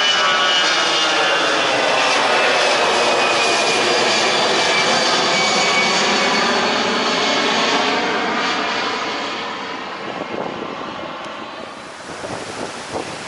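A jet airliner passing close at the runway with a loud engine roar, its high whine falling in pitch, fading over the last few seconds. Near the end, wind buffets the microphone.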